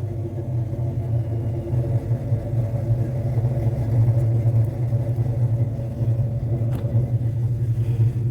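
A 1995 Ford Mustang SN95's supercharged 5.0 V8 idling steadily, warming up after a cold start.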